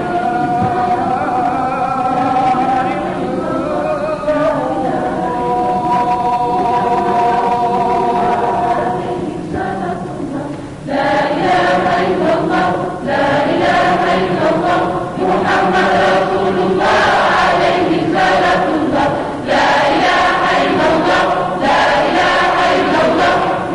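Children's choir singing: long held notes at first, then, after a brief dip about ten seconds in, a louder passage with quicker syllables.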